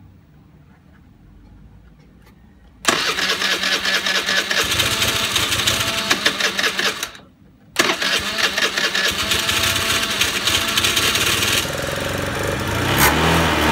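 Honda Today scooter's 49cc four-stroke engine starting suddenly about three seconds in and running with rising and falling revs, cutting out for a moment midway, then catching again and running on. The engine is running poorly and reluctant to rev freely, being treated with engine conditioner for carbon buildup.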